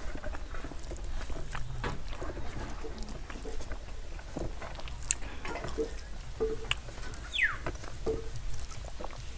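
Eating sounds: fingers squishing and mixing rice and curry on a steel plate, with wet chewing and lip smacks, a run of small irregular clicks and smacks. A single short falling chirp comes about seven seconds in.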